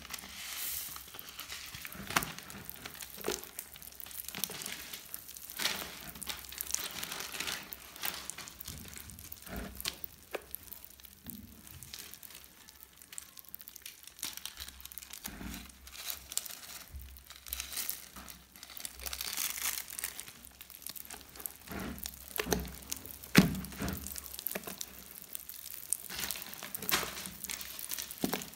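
Slime mixed with small beads crackling as it is squeezed and worked, with many irregular sharp clicks and pops over a steady crinkly hiss.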